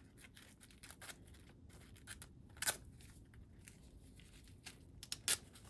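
Scissors snipping through a spent rosin-press filter bag puck: scattered faint, sharp snips, the clearest about two and a half seconds in and two close together near the end.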